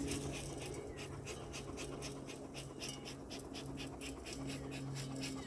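Honeybees buzzing around an open hive, a low hum that swells and fades as bees fly past, over a rapid run of soft crackling ticks.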